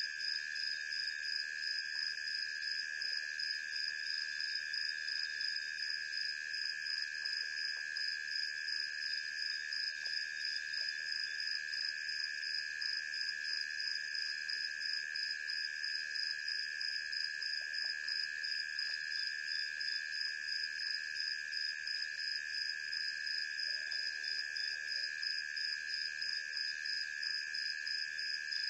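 Night insect chorus: several steady high-pitched trills overlapping at different pitches, the highest one pulsing fast and evenly.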